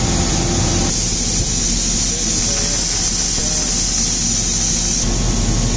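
Elgi air compressor running steadily under full load, with a high hiss of compressed air being drained. The hiss grows louder about a second in and drops back near the end.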